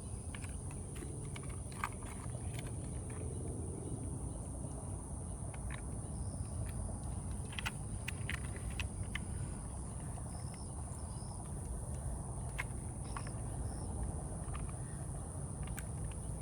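Outdoor riverbank ambience: a steady low rumble under a constant high insect drone, with a few short high chirps and scattered small clicks and knocks from handling gear.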